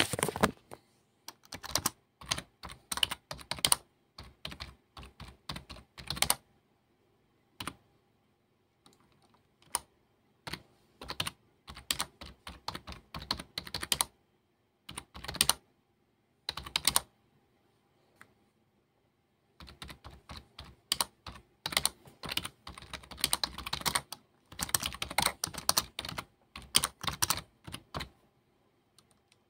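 Typing on a computer keyboard: runs of quick keystrokes with two short pauses.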